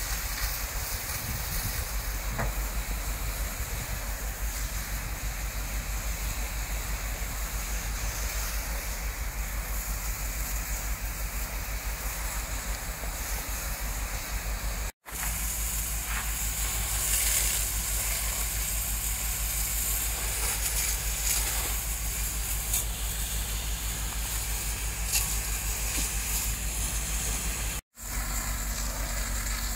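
Steady low engine drone under a constant hiss from the burning thatched roof and the water sprayed onto it. The sound cuts out for an instant twice.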